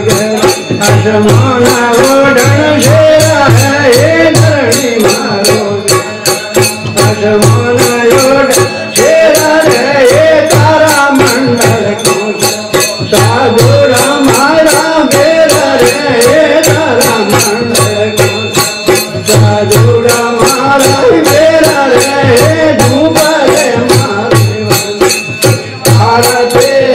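Rajasthani devotional bhajan played live: a man's voice singing over a keyboard melody, a dholak drum keeping a steady beat, and small brass manjira hand cymbals clashing in time.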